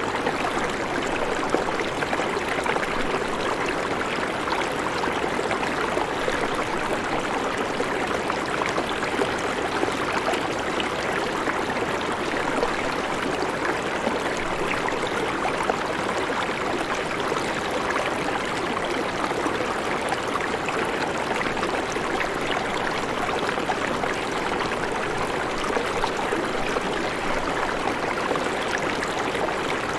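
Shallow river rushing steadily over stones, an even, continuous water noise.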